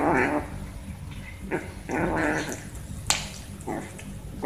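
Tabby kitten calling as a finger presses on its back: a few short, pitched cries of about half a second each, with a sharp click a little past the middle.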